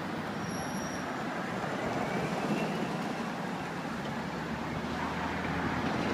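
Steady city street traffic: engines and tyres of passing cars, with a brief rising engine whine a couple of seconds in.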